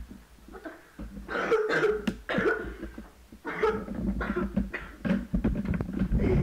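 A boy coughing hard in repeated fits, as if choking on smoke and ash.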